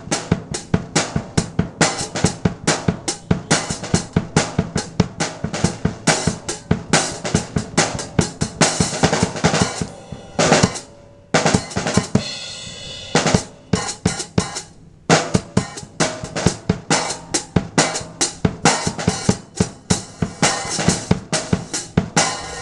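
A drum kit played in a fast, busy pattern: snare, bass drum and rim strikes several times a second, with a short break about halfway through where something rings on.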